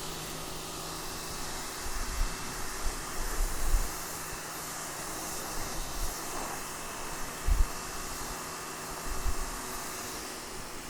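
Sun Joe SPX3000 electric pressure washer running, its 25-degree nozzle jet spraying concrete slabs with a steady hiss and a faint motor hum. A few short low thumps come through, the strongest about seven and a half seconds in.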